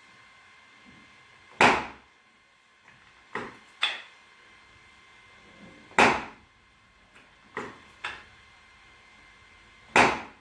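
Sharp knocks from chiropractic adjustments on a patient on the treatment table: three loud ones about four seconds apart, with a pair of softer knocks between each.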